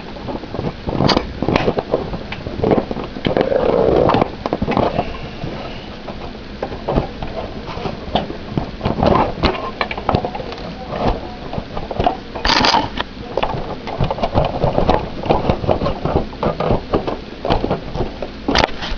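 A removable part inside a desktop computer case being unlatched and worked out by hand: repeated clicks, knocks and scrapes of plastic and metal, with one sharper knock about two-thirds of the way through.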